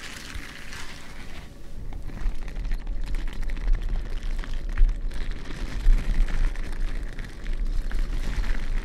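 Gloves with textured palms rubbing and brushing against the microphone: an uneven rustling noise with a deep rumble that swells and fades, and a few sharper bumps.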